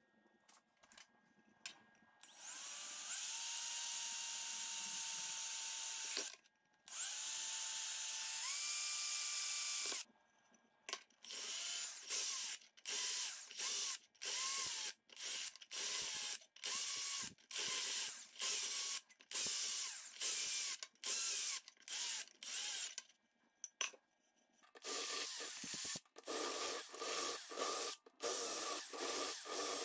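Cordless drill boring holes through a thin steel tomato can. Two runs of a few seconds each come first, the motor's whine rising as it spins up, then a string of short bursts about once a second, and a last close cluster near the end.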